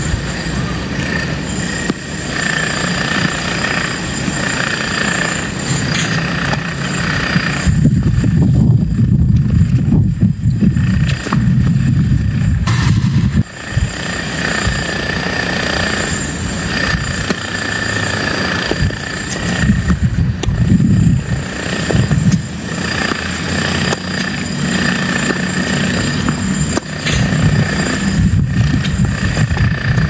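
Strong wind buffeting the microphone, a loud low rumble that swells in gusts, with a steady high-pitched whine running underneath.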